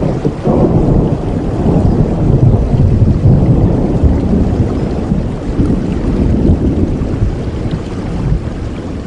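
A long roll of thunder over heavy rain: a deep rumble that swells over the first few seconds, then slowly dies away under the steady hiss of the rain.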